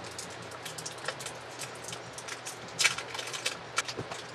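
Scattered light clicks and taps of plastic and metal parts being handled on an opened laptop: its battery cable being pressed into its connector and the laptop being picked up, with a louder cluster of clicks about three seconds in.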